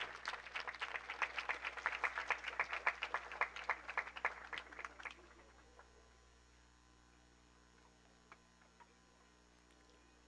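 An audience applauding, the clapping thinning out and dying away about five seconds in. After that the room is quiet apart from a few faint clicks.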